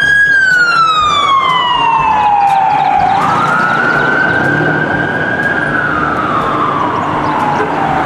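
Ambulance siren on a slow wail. The pitch sweeps down, jumps back up about three seconds in, rises gently, then sweeps down again near the end.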